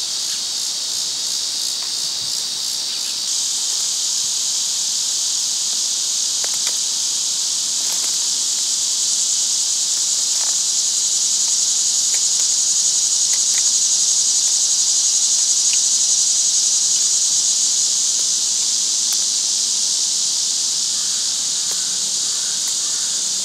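Steady, high-pitched buzzing of an insect chorus. It steps up slightly about three seconds in and swells a little towards the middle.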